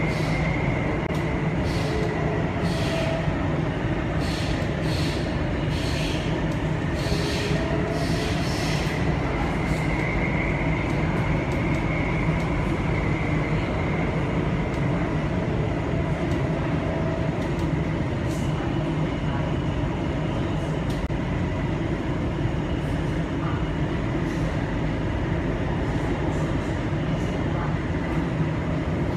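Cabin noise of a Downtown Line C951 metro train running: a steady rumble of wheels and running gear with a faint high whine, and a few short hisses in the first ten seconds.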